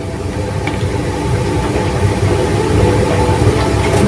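Steady low rumble of a running motor or burner, with faint steady tones above it.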